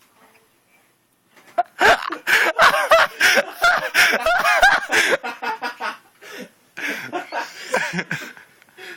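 A person laughing hard, a loud run of rapid laughs starting about two seconds in, then tailing off into softer chuckles.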